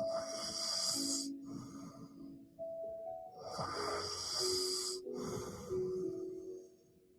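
A sleeping woman snoring: four noisy breaths in and out, each about a second long, the last dying away near the end. Soft background music with slow held notes plays underneath.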